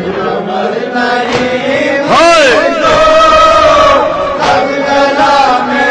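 A voice chanting an Urdu noha, a Shia mourning lament. It sings a wavering phrase about two seconds in, then holds a long note.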